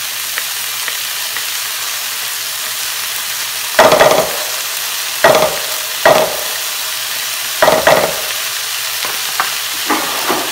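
Diced onion sizzling steadily in olive oil in a hot nonstick pan. A wooden pestle coated with crushed garlic gives four loud knocks, about four to eight seconds in, followed by a few lighter taps near the end.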